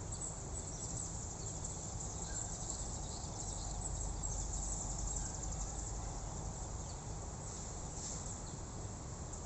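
A steady outdoor insect chorus, crickets or similar, trilling high and continuously over a low rumble.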